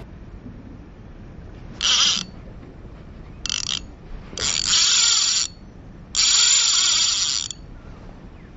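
Ryobi Ultra Power 800 spinning reel's drag buzzing in four bursts, the longer ones about a second, as a hooked fish pulls line off against it.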